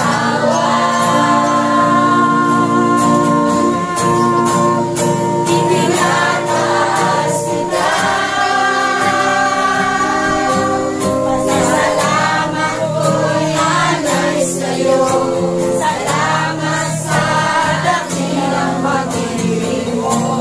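A congregation singing a Tagalog praise song together in held, sustained lines, over instrumental accompaniment with percussion.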